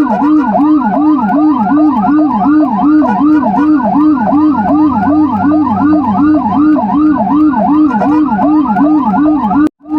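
Emergency-vehicle siren in a fast yelp, its pitch sweeping up and down about three to four times a second. It drops out for a moment just before the end, then resumes.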